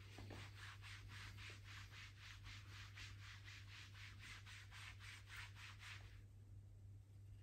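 Hands rubbing briskly back and forth over a person's back through a sweatshirt hoodie: a fast, even run of scratchy fabric strokes, about four a second, that stops about six seconds in.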